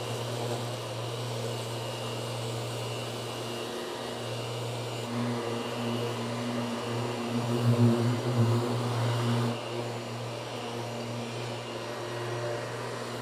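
Random orbital sander hooked to a dust-extraction vacuum, running steadily as it sands 2K urethane primer on a car door with 600-grit to prep it for paint. The hum swells louder from about five to nine seconds in, then settles back.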